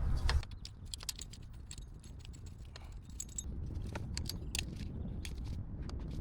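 Scattered light metallic clicks and clinks of hand tools and small parts being handled, irregular rather than in a steady rhythm, over a low background rumble.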